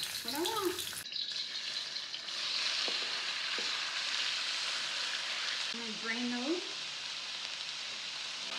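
Marinated pork pieces sizzling steadily in a hot carbon-steel wok as they are tipped in and spread around with a fork, with a couple of light taps of the utensil about three seconds in.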